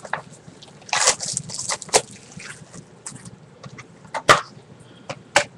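Plastic Blu-ray case being opened and handled: a short rustle about a second in, then a few sharp clicks and snaps, the loudest about four seconds in.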